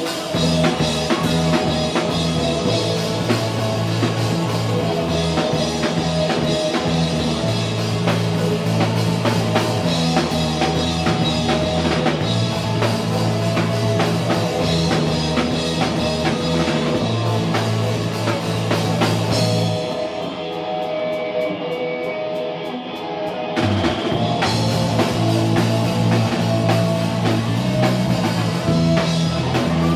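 Rock band playing live, an instrumental passage of distorted electric guitars, electric bass and a drum kit. About twenty seconds in the drums and cymbals drop out for a few seconds, leaving guitars and bass, before the full band comes back in.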